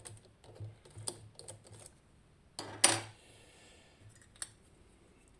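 Small metallic clicks and taps of lock-picking tools handled against a lock, with one louder clack about three seconds in.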